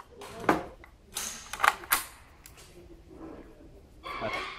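Sharp metallic clacks and clicks from a Saiga 12 semi-automatic 12-gauge shotgun being handled between strings of fire, several in the first two seconds, then a softer rattle about four seconds in.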